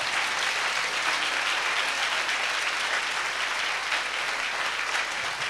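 Congregation clapping in steady applause.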